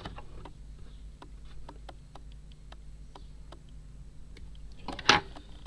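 Camera autofocus motor clicking irregularly, a few small ticks a second, as it hunts for focus. About five seconds in, one short, loud burst of noise.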